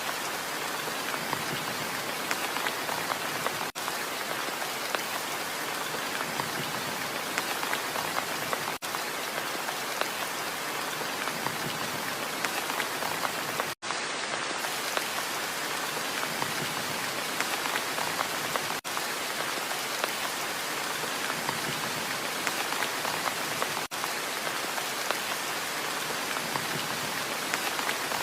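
Steady hiss of rain-like patter, dense with tiny drop clicks. It breaks off for an instant about every five seconds, as a looped sound track does.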